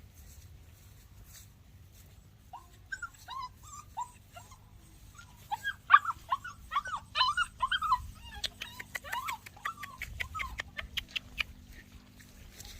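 Dogs whining and yipping in short, high, rising-and-falling cries, starting a few seconds in and going on for most of the rest. A run of quick, sharp ticks comes in about two-thirds of the way through.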